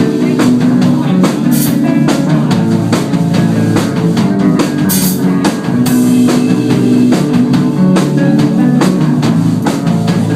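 Live rock band playing an instrumental passage: a drum kit keeping a steady beat under sustained guitar and bass chords, with two cymbal crashes, one about a second and a half in and one around five seconds in.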